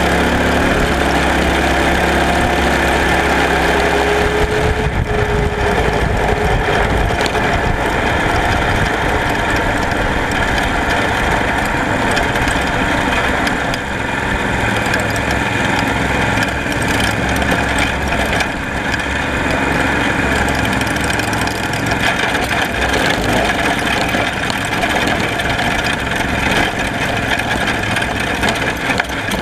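Go-kart engine running as the kart drives, heard from a camera mounted on the kart: a steady engine note for the first few seconds, then rough, constant engine and driving noise.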